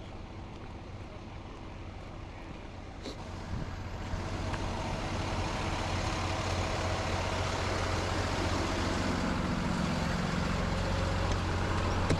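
Truck engine running, growing louder about three and a half seconds in and then holding steady.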